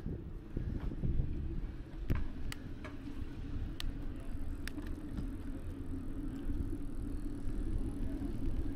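Riding noise from an e-bike on a trail, picked up by an action camera's built-in microphone: a steady low rumble of wind and tyres, with a few sharp clicks and rattles between about two and five seconds in.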